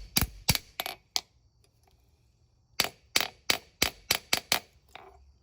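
Forging hammer striking a small blade of hot spring steel on an anvil, each blow a sharp metallic clang: four blows, a pause of about a second and a half, then a quicker run of about seven blows, roughly three a second.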